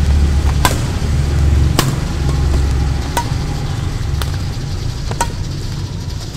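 A badminton rally: rackets strike the shuttlecock with sharp clicks about once a second, five or so in all, over a steady low rumble.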